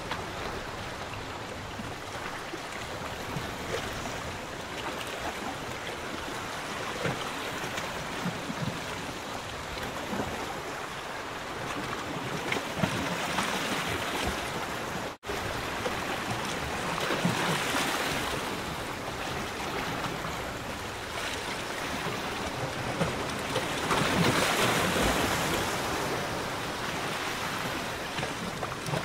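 Choppy lagoon water lapping and splashing against a pontoon, swelling louder in a few surges. The sound drops out for an instant about halfway.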